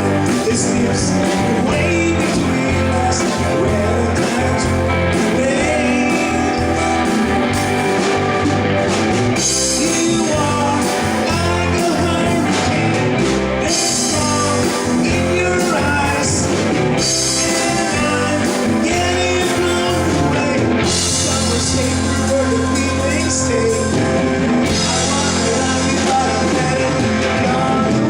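Rock music: a full band with a melody line bending in pitch over steady bass, cymbals washing in every few seconds.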